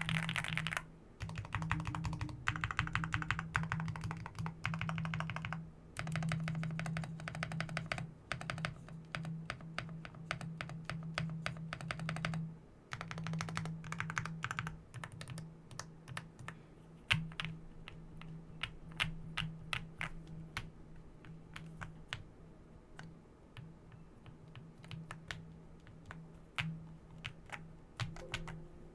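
Akko SPR75 mechanical keyboard with Matcha Green Pro switches, tape-modded, force-break-modded and filled with polyfill, being typed on. Fast runs of keystrokes with short pauses make up the first half, then slower, separate key presses.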